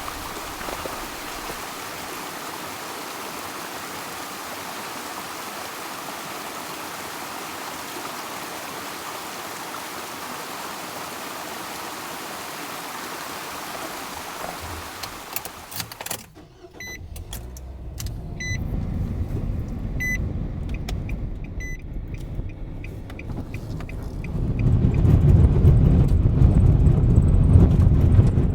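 A steady rushing noise, then a car's warning chime beeping about six times, evenly spaced, with a low car-engine rumble under it that grows louder near the end.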